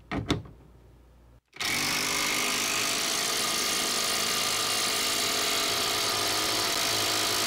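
Hyper Tough 20 V brushless cordless impact wrench hammering under full load against a hydraulic test rig. It starts suddenly about a second and a half in and runs steadily at one level through the rest.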